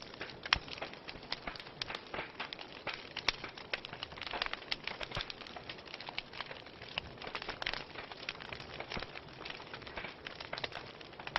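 Wood fire in a fireplace crackling, with frequent irregular sharp pops and snaps over a soft steady hiss.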